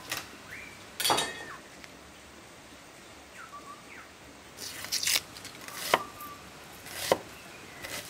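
Kitchen knife knocking on a wooden cutting board in a handful of separate strokes while vegetables are cut, with the dry rustle of corn husks being pulled back.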